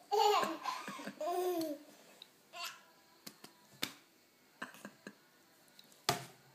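A toddler laughing and squealing in high-pitched bursts for about the first two seconds, then a few short voice sounds and sharp taps, the loudest tap near the end.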